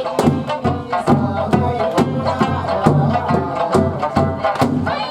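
Eisa music: an Okinawan folk song with pitched melody, its beat struck on drums about three times a second.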